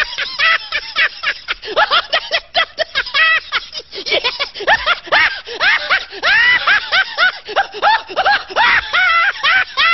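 High-pitched laughter: a long, fast run of cackling bursts, several a second, rising and falling in pitch.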